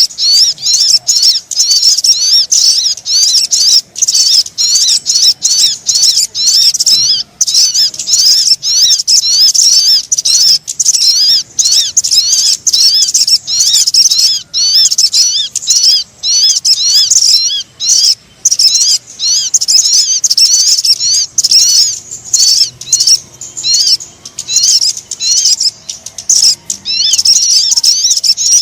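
Bird-lure (pikat) recording of sogon bird calls: a dense, continuous run of rapid, high chirping notes, many each second, broken by short pauses.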